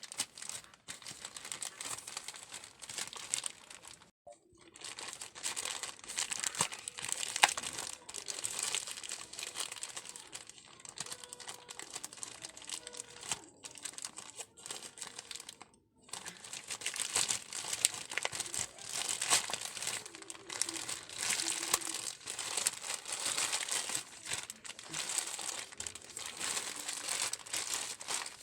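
Parcel packaging handled and torn open by hand: continuous irregular crinkling and rustling, with two brief pauses, about four seconds in and about sixteen seconds in.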